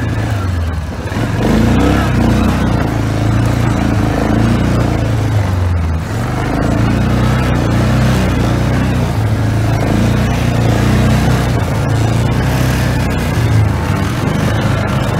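ATV engine running under throttle, its pitch rising and falling with the revs, easing off briefly about one second and six seconds in.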